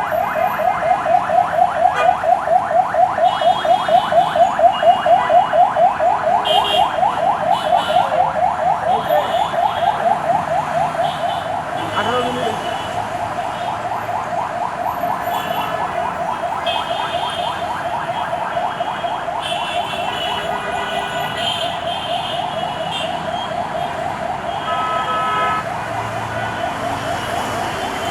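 An electronic vehicle alarm sounding continuously, a rapid run of repeated chirps, louder for about the first ten seconds and then a little softer. Short horn blasts sound at intervals over it, amid road traffic.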